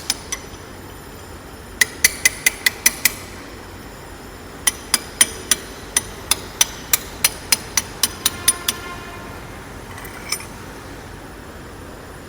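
A hammer striking a chisel against the folded steel locking plates on a locomotive axle box's thrust collar bolts, unfolding them. The sharp metallic blows come in two quick runs, about seven and then about fourteen, with a brief metal ringing after the last ones and a single blow a little later.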